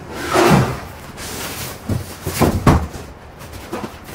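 A cardboard shipping box scraping and bumping as it is tipped over and lifted off its polystyrene foam packing insert. There is a loud rustling scrape about half a second in, then a few knocks and scrapes about two seconds in.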